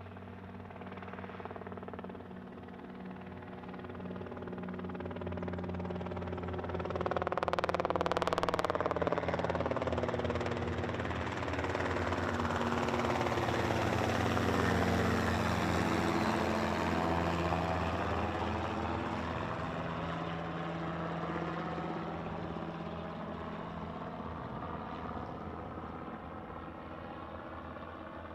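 An aircraft passing close by, its engine sound swelling to a peak in the middle and then slowly fading away.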